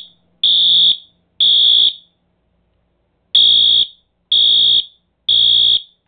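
Fire alarm horn-strobe sounding in short, loud horn blasts in the temporal-3 evacuation pattern: two half-second blasts, a pause of about a second and a half, then three more.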